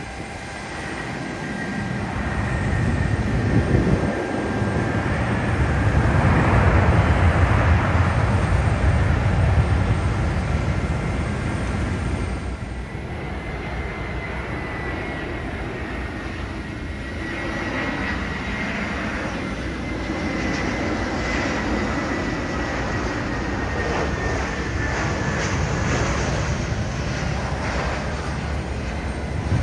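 Jet airliner's engines running as it moves along the runway: a rumble that swells to its loudest about six to ten seconds in and then eases, followed by a steady engine noise with a high whine that falls slightly in pitch.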